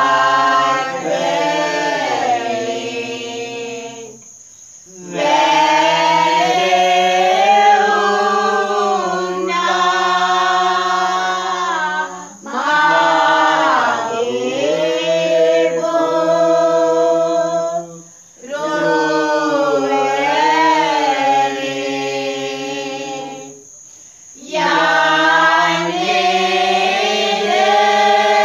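A group singing a Sinhala Catholic pasan, a Lenten Passion hymn, in long drawn-out phrases with short pauses between them.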